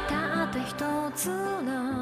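A pop song: a singer holds wavering notes over a steady bass and backing instruments.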